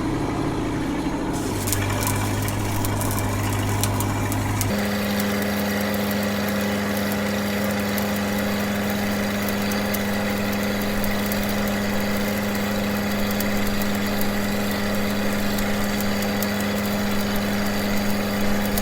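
Stick welding a 7018 cap pass: the arc crackles and hisses steadily over a running engine-driven welding machine, whose engine steps up to a higher speed about five seconds in.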